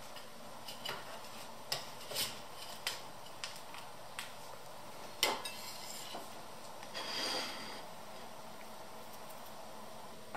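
Knife cutting a crumble-topped yeast cake on a wooden board and serving a slice onto a plate: scattered light clicks and taps of the blade on board and plate, with a brief scrape about seven seconds in.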